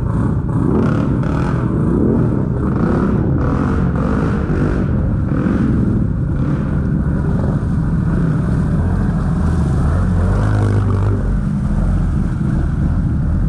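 ATV engines revving up and down as the quads plow through deep muddy water, with water splashing and churning. The engine note rises and falls early on, and a closer, deeper engine sound comes about ten seconds in as one machine churns past.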